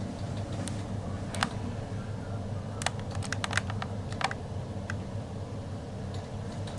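1970s Otis lift car travelling, a steady low hum, with a scattering of sharp light clicks, a quick run of them about halfway through.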